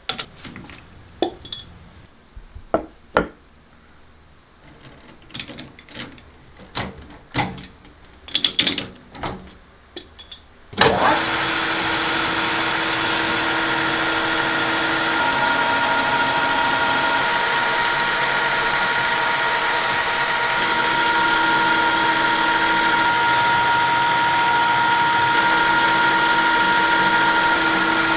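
Metal lathe turning a turntable platter: a few scattered clicks and knocks of the part being handled, then about eleven seconds in the cut starts suddenly and runs on as a steady machine noise with several held tones and the hiss of the tool cutting metal.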